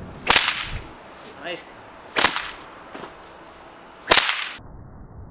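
Leather bullwhip cracked three times, about two seconds apart: three sharp cracks, each trailing off briefly.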